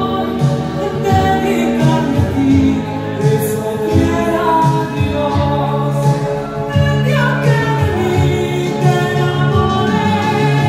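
A song with a singing voice over instrumental backing, amplified through a loudspeaker.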